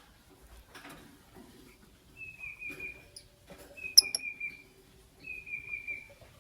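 Lovebirds calling: three drawn-out, slightly falling calls about a second and a half apart, with a sharp, short high chirp about four seconds in.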